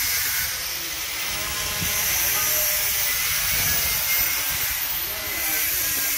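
Kubota DC-70G combine harvester running, a steady hissing machine noise with a low rumble underneath.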